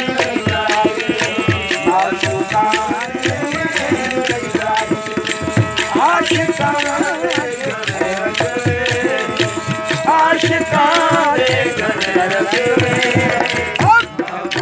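Live Sufi devotional song: male voices singing with sliding phrases over harmonium and a hand drum beating a quick, steady rhythm.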